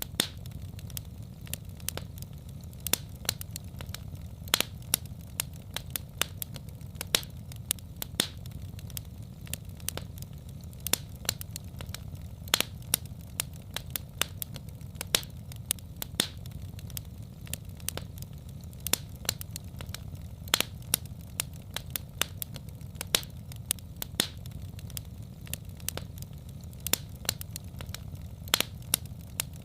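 Wood fire crackling in a fireplace: irregular sharp pops and snaps, several a second, over a steady low rumble of the burning fire.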